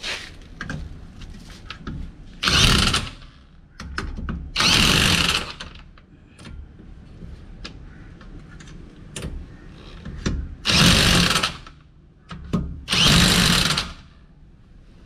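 INGCO electric impact wrench hammering car wheel nuts tight, in four short bursts of about a second each, with small clicks between them as it is moved from nut to nut.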